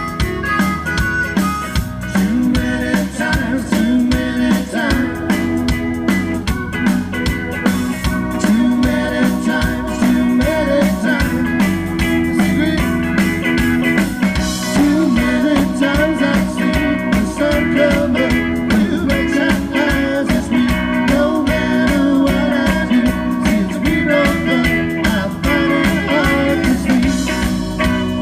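Live rock band playing a song: electric guitar and bass over a steady drum beat.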